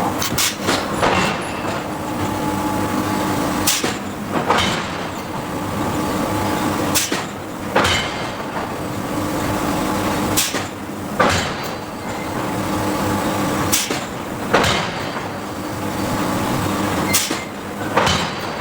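Giant hydraulic forging hammer striking steel: pairs of heavy blows less than a second apart, repeating about every three and a half seconds, over a steady hum of machinery.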